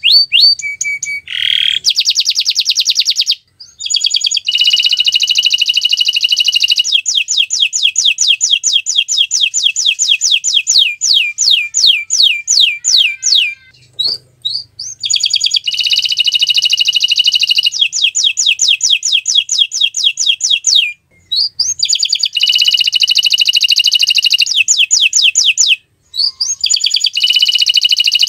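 Domestic canary singing long phrases of rapid trilled notes, each phrase a fast run of high repeated notes. The song breaks off briefly about four times before starting again.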